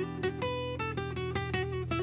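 Background music: acoustic guitar playing a fast run of plucked notes over held bass notes, from an instrumental medley of Vocaloid songs.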